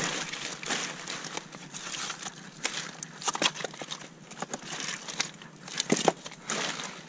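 Wet kelp fronds rustling and slapping as hands push them aside and lift them off rocks, with many short crackles and clicks.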